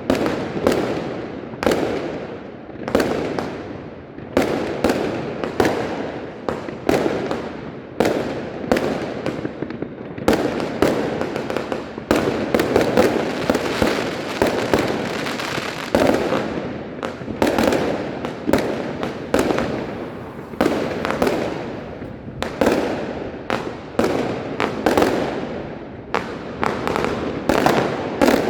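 New Year's Eve fireworks and firecrackers going off nonstop: dense, overlapping bangs, several a second, over a continuous din of smaller blasts.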